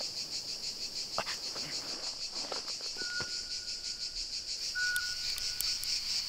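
Insect chorus in woodland: a steady, evenly pulsing high trill. About halfway in, a thin steady high tone joins it, breaking off and coming back, with a few faint ticks.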